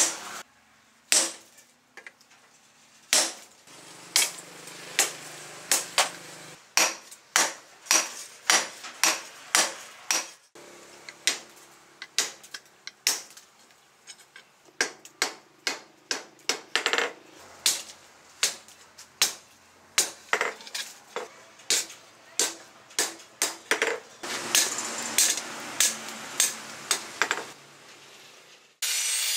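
Hand hammer striking red-hot steel rebar on an anvil while forging a cleaver blade: a long run of sharp metallic blows, about one to two a second with brief pauses, each ringing briefly.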